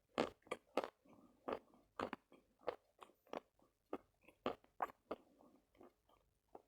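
Lumps of Khrapovsky chalk being bitten and chewed close to the microphone: a steady run of crisp crunches, about three a second, with softer grinding between them.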